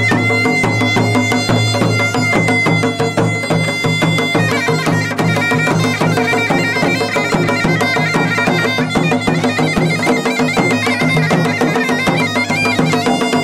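Masakbeen, the Garhwali bagpipe, playing a folk tune: a steady drone sounds under a chanter melody that moves between notes.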